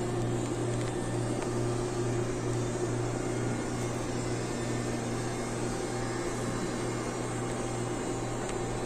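Heavy diesel machinery running at a steady speed: a constant low drone with a faint steady whine above it.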